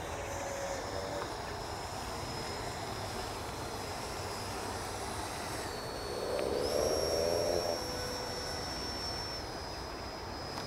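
Electric ducted fan of an Arrows Hobby BAE Hawk model jet giving a thin, high, steady whine over a steady low rumble. About six seconds in, the whine's pitch dips and then steps up as the throttle changes. A brief louder low sound comes at the same time.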